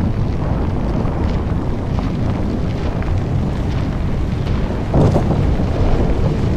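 Deep, continuous rumble from the controlled implosion of twin towers as they come down, mixed with wind buffeting the microphone, swelling slightly about five seconds in.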